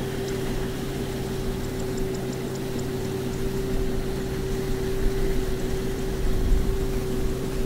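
Tractor engine running steadily with a constant hum over a low rumble, hauling a trailer loaded with rice sacks.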